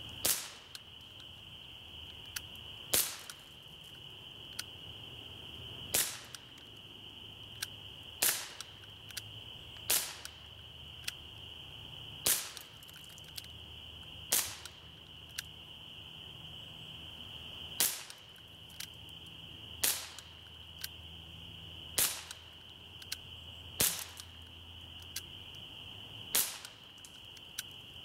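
Crosman PFM16 CO2-powered BB pistol firing about a dozen single shots, one every two to three seconds, each a sharp pop. Fainter ticks come between some shots, over a steady high-pitched drone.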